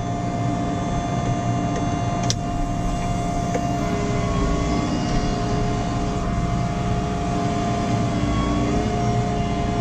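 JCB Fastrac 4220 tractor's diesel engine running steadily, with a single click about two seconds in and a further steady whine joining about four seconds in.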